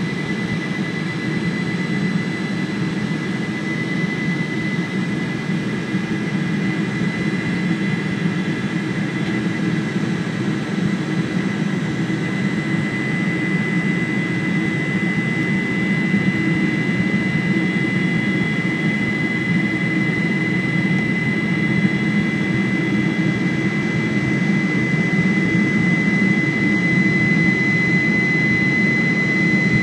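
Cabin noise of a Boeing 747-400 at climb power after takeoff, heard beside the wing engines: the turbofans' steady drone and airflow rush, with a thin high whine above them. It grows slightly louder toward the end.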